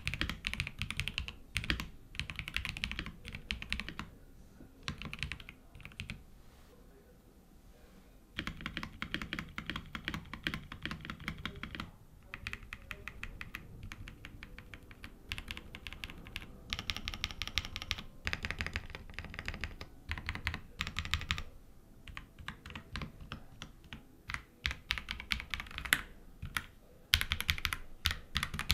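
Typing on the Akko PC75B Plus mechanical keyboard, whose linear switches come factory-lubricated and are capped with PBT keycaps: fast runs of key presses, with a lull of about two seconds near a quarter of the way in.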